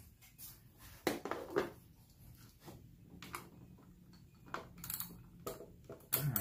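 Scattered, irregular clicks and light metallic knocks from a socket wrench being worked on bolts and parts in a car's engine bay.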